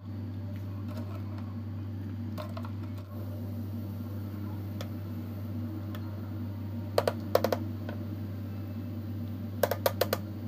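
Small pot of water boiling with bilimbi flowers in it, a steady low hum under the bubbling. Two quick runs of light clicks, about seven seconds in and again near the end, are the loudest sounds.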